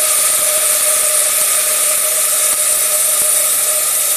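A steady mechanical whir: a constant hum under a high hiss.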